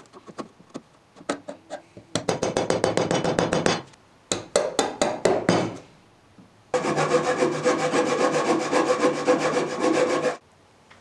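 Hand saw cutting through a softwood board in quick back-and-forth strokes: two short runs of sawing, then a longer unbroken stretch that stops suddenly about a second before the end. A few light scraping clicks of chisel paring come first.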